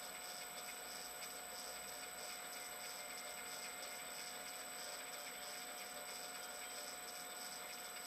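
Steady low hiss with a few faint steady tones and no distinct sound events, muffled as heard through a sealed camera housing.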